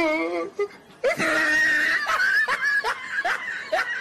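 A high-pitched laugh, a quick run of rising "ha" syllables about three a second, starting about a second in. Before it, a wavering drawn-out voiced note ends in the first half-second.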